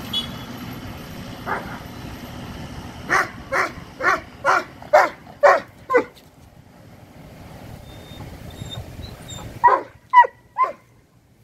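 A Doberman barking: one bark, then a quick run of about seven barks at about two a second, and three more near the end. Under the first half a tractor engine runs low and steady, fading away.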